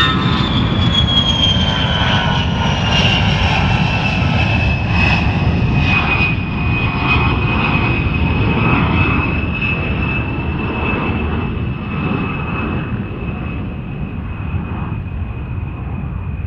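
Jet aircraft engine: a loud high whine that falls in pitch over the first several seconds and then holds steady over a constant low rumble, easing off slightly near the end.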